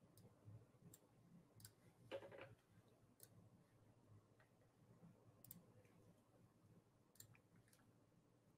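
Near silence: quiet room tone with about seven faint, sharp clicks spaced irregularly, and a brief soft noise about two seconds in.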